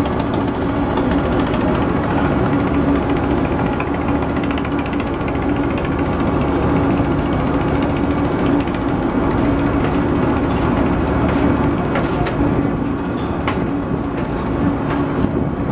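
A boat's engine running steadily, heard on board, with a constant low hum and a dense mechanical rattle.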